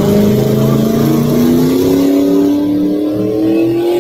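Pulling tractor's engine at high revs under load during a hook, its pitch climbing steadily as it pulls the sled down the track.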